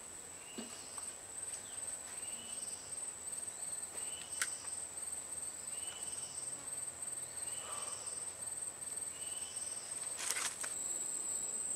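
Steady high-pitched insect drone from crickets or cicadas, with a short chirping call repeating about every one and a half seconds. A sharp click comes about four and a half seconds in and a brief rustle about ten seconds in.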